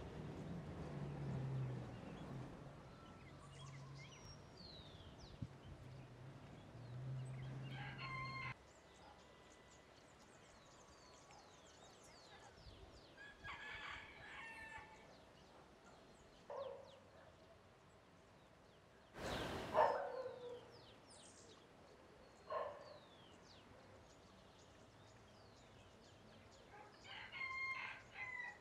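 A rooster crowing several times, faintly, the loudest crow about twenty seconds in, with small birds chirping in short high notes throughout. A low hum underlies the first eight seconds and stops abruptly.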